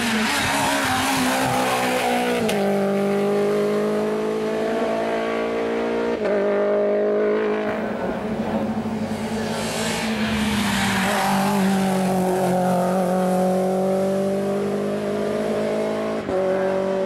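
Hillclimb racing car engines running hard at high revs as the cars accelerate uphill. The engine note climbs steadily, then drops or jumps abruptly a few times.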